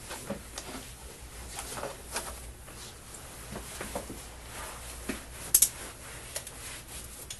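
Faint rustling of clothing and shuffling from a pat-down search in a small room, with scattered light clicks and one sharp double click about five and a half seconds in.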